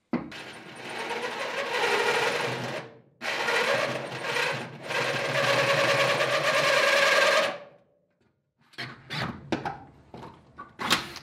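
Cordless drill driving a hole saw with a pilot bit through the steel truck bed floor. It cuts in two runs, briefly stopping about three seconds in, and stops for good near the eighth second once the hole is through. A few sharp knocks follow near the end.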